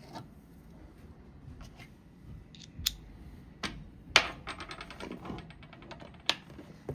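Sharp metal clicks from hand tools and rifle parts as a Ruger 10/22 is taken apart. The loudest click comes about four seconds in and is followed by a fast run of ticks lasting about a second and a half; there is one more click near the end.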